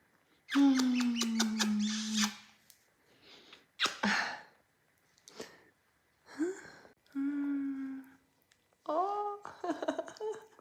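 A dog vocalizing in a series of calls: one long steady call of nearly two seconds, a few short ones, then wavering calls that bend up and down near the end.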